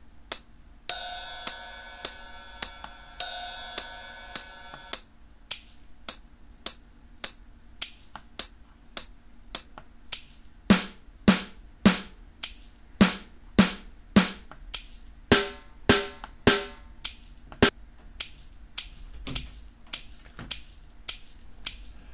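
Software click track playing a steady beat of about two hits a second, its tone being swapped between drum samples. Short hi-hat ticks come first, with two longer ringing hits near the start. Snare hits follow around the middle, then shaker ticks.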